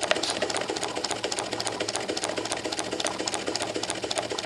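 Model marine twin-cylinder live steam engine running at a slow tick-over, a quick, even clicking and chuffing of its cylinders and valve gear as it runs smoothly with the steam valve only cracked open.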